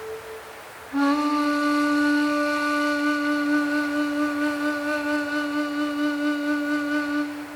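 Ambient music: a single low woodwind note begins about a second in and is held for about six seconds with a slight vibrato, fading just before the end, over a faint steady hiss of wind sound design.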